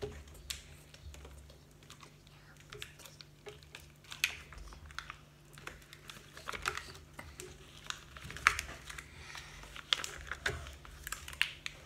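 Foil and paper toy packaging being unwrapped and handled: irregular crinkling and crackling, sparse at first and busier from about four seconds in.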